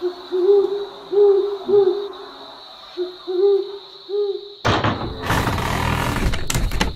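Owl hooting: a run of short low hoots, each rising and falling in pitch, some in quick pairs, over a steady thin high-pitched drone. About two-thirds of the way in, a loud noisy rush with a few sharp clicks cuts in for about two seconds.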